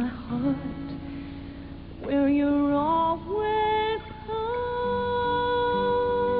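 A woman sings a slow ballad live into a microphone, accompanied by acoustic guitar. After a few short phrases, she holds one long note from a little past the middle, with a slight vibrato near the end.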